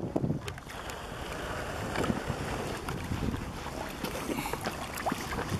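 Wind buffeting the microphone over lapping water, with the soft splashing of a dog swimming in with a ball in its mouth.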